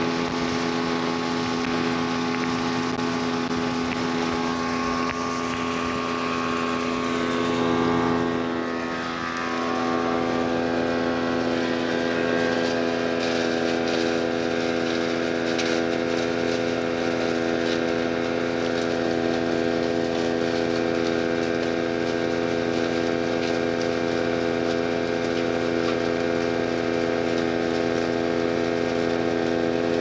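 Gas-engine wood chipper (DK2 OPC506, Kohler single-cylinder engine) running steadily at full speed, with a brief dip in speed about eight to nine seconds in. From about twelve seconds on, frequent sharp clicks and crackles come through as lumps of charcoal are fed in and shredded.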